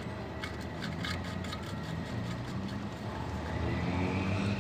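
Faint light clicks of an oil drain plug being threaded into the oil pan by hand, scattered through the first half, over a steady low background hum.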